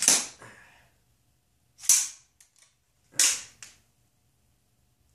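Gas blowback airsoft M4 firing three sharp shots, about two seconds and then a second and a half apart, each followed by a short hiss of gas. The shots come as a jam is cleared, and a BB is broken inside the gun, which the owner puts down to the cold.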